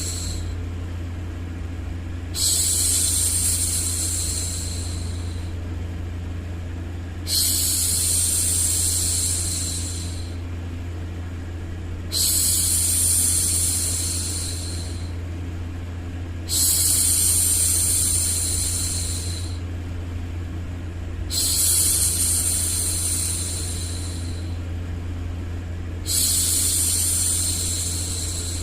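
A woman's long soothing 'shhh' for hushing a baby, repeated six times at even intervals of about five seconds, each starting suddenly and fading out over two to three seconds, over a steady low white-noise hum.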